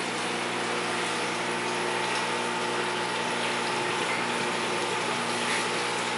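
Aquarium pump humming steadily under a constant rush of water through a large, high-flow wet/dry sump filter.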